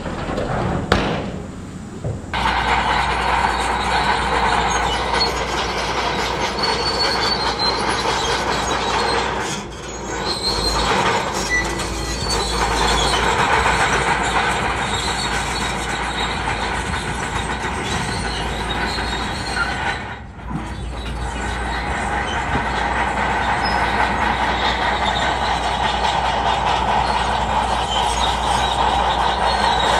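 Heavy earthmoving machinery running: a steady diesel engine with squealing and clanking steel, like crawler tracks on rock, broken by three brief dips.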